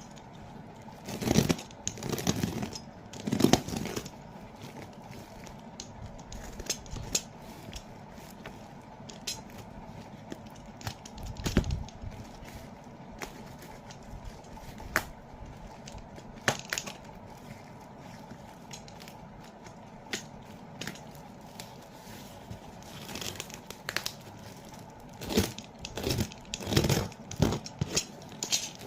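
A parcel's packaging being torn and crinkled open by hand, in scattered bursts of tearing and crackling with louder spells near the start and near the end and small clicks and rustles between.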